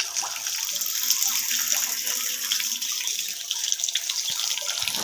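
Strong, steady stream of water gushing out of the open end of a pipe fed by a 12-volt DC water pump running at full pressure.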